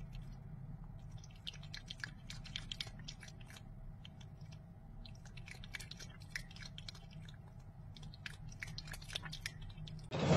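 Cat lapping water from a fish tank: a run of quiet, irregular wet clicks from its tongue at the water's surface.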